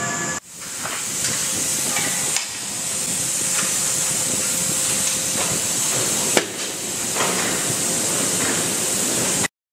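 Forge-shop machinery noise: a steady hiss with scattered metallic knocks. It cuts off abruptly near the end.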